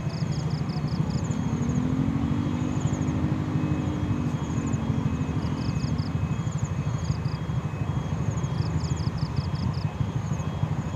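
A diesel-hauled container freight train rolls steadily past a level crossing, its wagons making a continuous low rumble, while the crossing's warning signal sounds in even, alternating two-tone beeps. Early on, a fainter engine tone sweeps down and back up.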